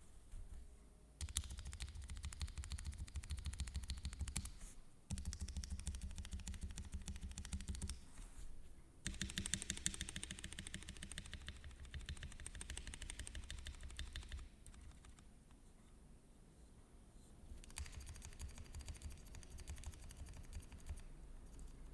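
Lubed Cherry screw-in stabilizers on a keyboard PCB being pressed over and over in four bursts of fast clacking, to test them for rattle. The builder judges them good enough.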